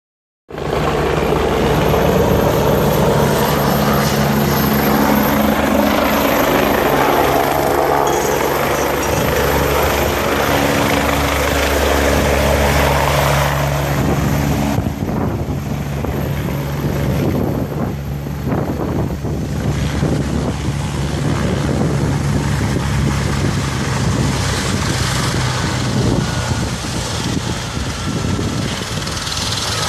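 Ambulance helicopter running close by: a loud steady drone of rotor and turbine engine with a thin high whine above it. The whine dips slightly in pitch about two-thirds of the way through.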